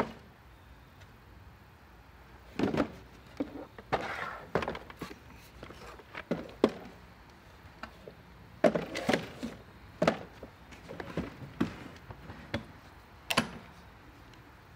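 Irregular thunks and knocks, some in short clattering clusters, from a plastic ride-on toy jeep being turned over and shifted by hand.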